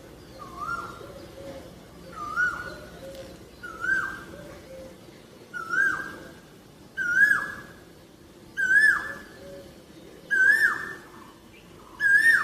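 Asian koel (koyal) giving its repeated two-note "ko-el" call, about one call every one and a half seconds, eight in all. Each call climbs higher in pitch and grows louder than the one before.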